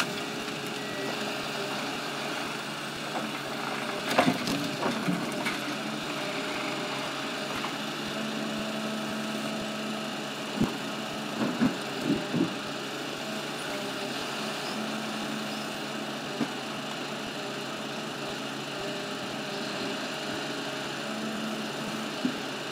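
Ponsse Elephant King forwarder's diesel engine running steadily while its hydraulic crane works, with a humming tone that comes and goes as the hydraulics take load. Over it come several hard clunks of logs knocking in the grapple and on the load, a cluster about four to five seconds in and another about eleven to twelve seconds in.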